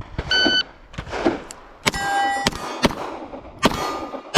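An electronic shot-timer beep, then a fast string of about seven 9mm pistol shots from a Beretta M9. Each shot is followed by the ring of a hit steel plate.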